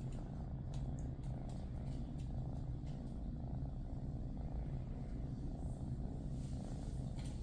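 A kitten purring steadily close to the microphone, with a few faint light ticks over it.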